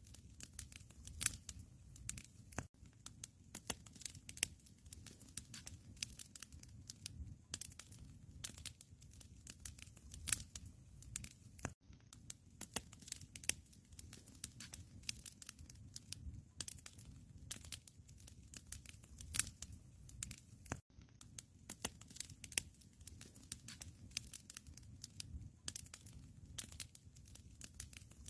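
Wood fire crackling in a fireplace: a steady low rumble of flames with many small irregular pops and snaps.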